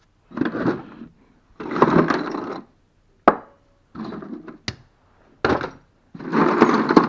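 Metal drill bits and tool holders being rummaged through and handled, rattling and clattering in bursts, with a couple of sharp clicks as pieces are set down.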